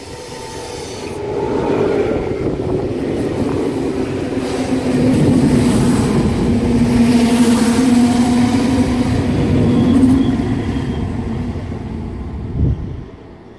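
A Trenitalia TAF double-deck electric multiple unit passing close along the platform: rumble of wheels on rails with a steady low hum, building over the first couple of seconds. Near the end there is a brief thump, then the sound drops away sharply.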